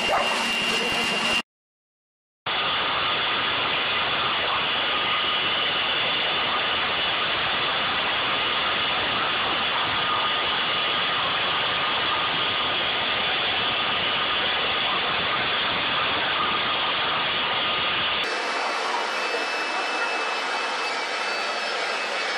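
Leaf blowers running steadily: a rush of blown air with a faint steady whine. The sound cuts out for about a second near the start and changes near the end, when a different blower takes over. The last one is a corded electric leaf blower.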